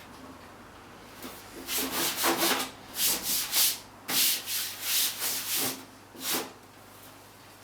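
A run of about a dozen short scraping, rubbing strokes over about five seconds, starting a second in. The last comes a little after six seconds.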